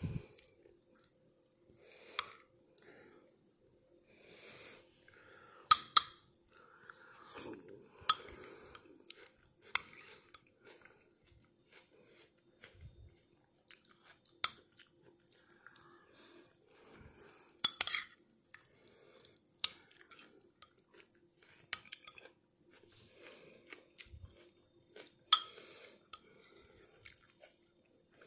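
Metal spoon clinking against a bowl of noodle soup at irregular moments, with chewing in between.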